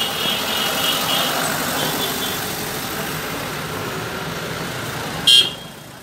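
Road traffic with a bus engine running close by, and a short, loud high beep about five seconds in, after which the engine noise drops away.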